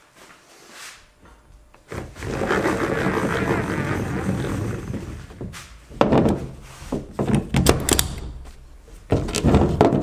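Retractable 1.5-inch ratchet strap reeling its webbing back into the spring-loaded drum, a steady whirring drag lasting about three and a half seconds. It is followed by a series of sharp clacks and knocks as the metal ratchet and hook are handled.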